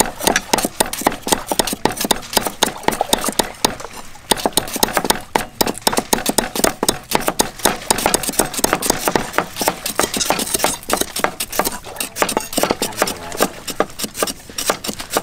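Cleavers chopping green onions on thick round wooden chopping blocks, more than one at once: a fast, uneven run of knocks.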